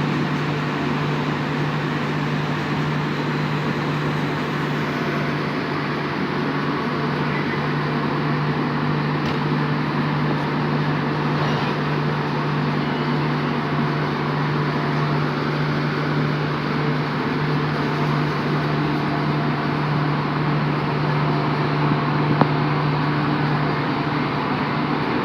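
Diesel generator set of an Indian Railways LHB end-on-generation power car running steadily, a constant even drone with a strong low hum.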